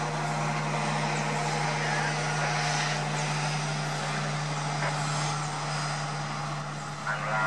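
Passenger train coaches rolling past, giving a steady rushing wheel-and-rail noise over a constant low hum. There is a brief louder swell near the end.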